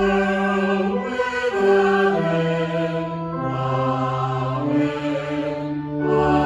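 Slow, solemn music of long held chords that move to a new chord every second or two.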